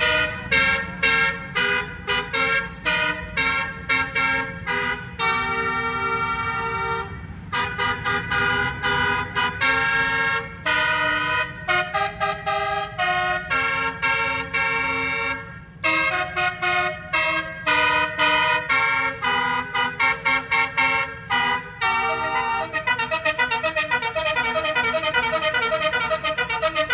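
Indonesian 'telolet' bus horn, a set of air-horn trumpets playing a tune of short notes that change pitch one after another, ending in a run of very rapid alternating notes in the last few seconds. A steady low rumble runs underneath.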